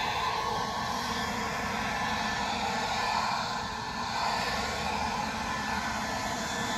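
Cordless leaf blower running steadily: a continuous rushing of air with a faint motor whine, dipping slightly about four seconds in.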